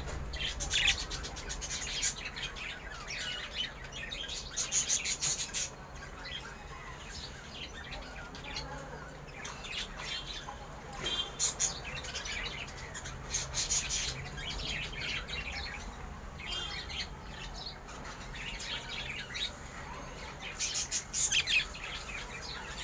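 Pet budgerigar chirping and chattering: bursts of quick, high warbling chirps and clicks that come and go.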